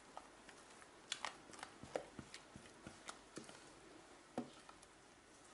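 Faint, irregular soft taps and scrapes of a spatula working thick pastry cream out of a metal pot into a glass bowl, with soft squelches of the cream dropping in.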